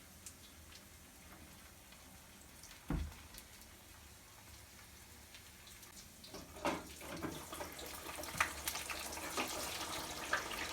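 Chicken frying in hot oil in a deep fryer, sizzling and crackling. After a single thump about three seconds in, the sizzle starts about two thirds of the way through and grows louder.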